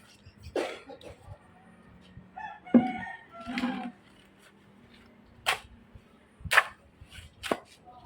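A rooster crowing about two and a half seconds in, followed by three sharp knocks roughly a second apart.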